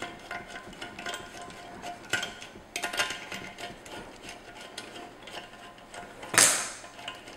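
Small metal clicks and scrapes as nuts are spun off the studs of an aluminium valve spring compressor tool by hand, on a BMW S52 cylinder head, with one louder metal clack about six seconds in.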